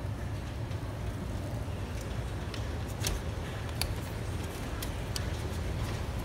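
Steady low rumble with about half a dozen light metallic clicks and taps from the hoist chains and engine parts, as a chain-slung diesel engine is lowered into the engine bay and guided by gloved hands.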